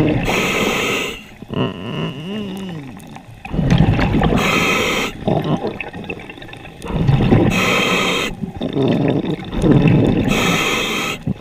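Scuba regulator breathing underwater: four inhalations about three seconds apart, each a hiss under a second long. Between them comes the low rumble and gurgle of exhaled bubbles.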